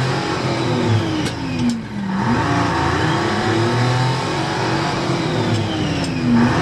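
Lincoln Continental's 460 big-block V8 driving past, its engine note falling in pitch as it goes by, twice.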